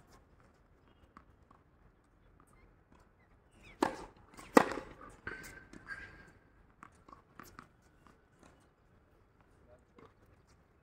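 Tennis ball knocks on a hard court: two sharp hits close together about four seconds in, then scattered light taps and shoe scuffs.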